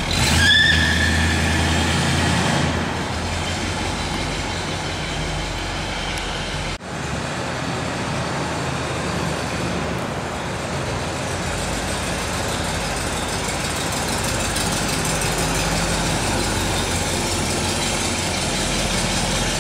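1968 Oldsmobile 442's rebuilt 400 V8 running with a steady exhaust note, with a brief rising whine just after the start. The sound cuts out for an instant about seven seconds in, then the engine runs on steadily as the car drives slowly.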